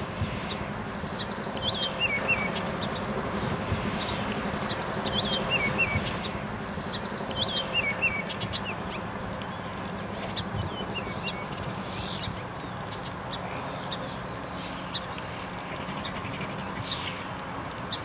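Barn swallows twittering: short runs of rapid high ticks followed by squeaky chirps, repeated about every three seconds in the first half and sparser later, over a steady background rush.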